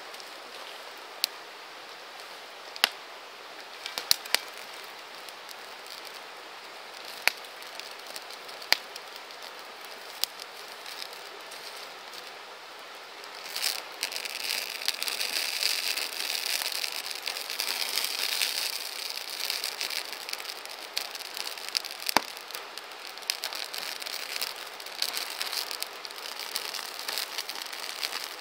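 Campfire burning: a steady hiss with a sharp crack or pop from the wood every few seconds. About fourteen seconds in, the hiss grows louder and brighter and the crackling becomes denser.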